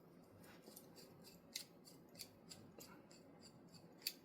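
Faint small metallic ticks and clicks of a screwdriver working screws out of a Gasser Montenegro revolver's frame, several a second, with one sharper click near the end.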